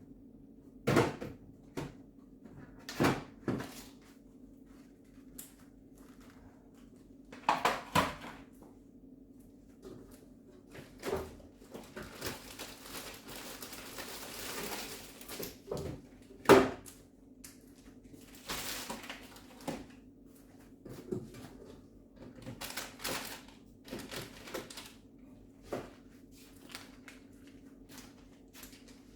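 Scattered knocks and clatters of containers and fridge shelves or drawers being handled, the sharpest knock about halfway through, with two longer stretches of rustling or wiping, over a steady low hum.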